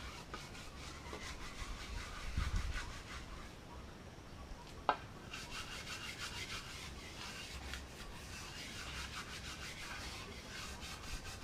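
Quick rhythmic rubbing or scraping strokes. They pause briefly a little before halfway, with one short sharp sound just before they resume.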